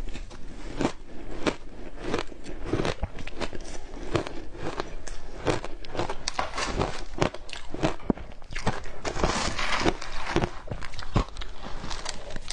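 Frozen matcha ice being bitten and chewed close to the microphone: a dense run of sharp crunches and cracks, thickest for a couple of seconds about nine seconds in.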